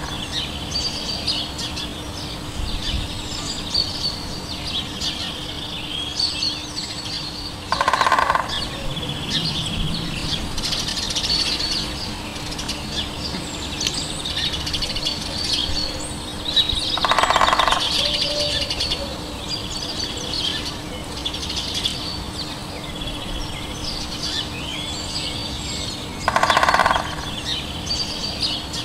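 Woodland dawn-chorus-style birdsong: many small birds chirping and twittering at once. A louder, harsher call of a larger bird cuts in three times, about nine seconds apart, each lasting about a second. A faint steady hum runs underneath.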